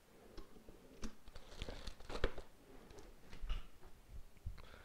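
Thin wrapping material being crinkled and torn, in a series of short, irregular rustles with a few sharper clicks.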